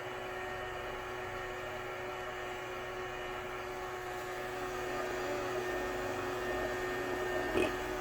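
Sterilizing robot vacuum cleaner running: a steady motor hum with a wavering tone over it, and one short knock near the end.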